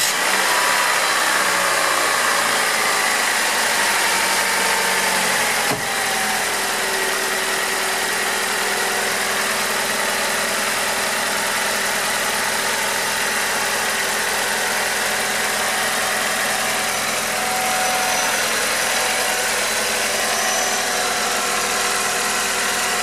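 Freshly rebuilt Saturn S-Series 1.9 L DOHC four-cylinder just started and running its break-in idle. It starts at a fast idle that eases down over the first several seconds, then idles steadily, with a brief click about six seconds in.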